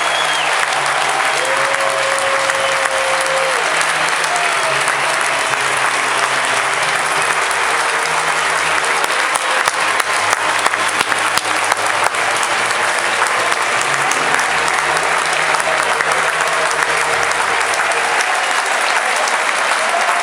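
Large baseball-stadium crowd applauding steadily, with shouting voices mixed in. The clapping grows sharper and louder about halfway through.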